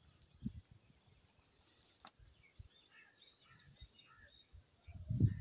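Birds chirping outdoors, scattered short calls here and there, over faint low thumps; a louder low rumble comes in near the end.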